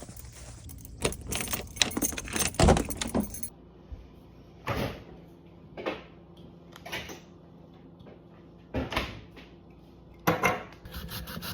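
Jangling, clattering rattles of things being handled: a busy run of short rattles over the first few seconds, then single rattles every second or so, over a faint steady low hum.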